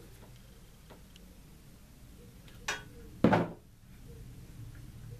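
Workbench handling noise at the transformer's wiring: light clicks, then two sharp snaps about half a second apart a little past the middle, the second louder, over a faint steady low hum.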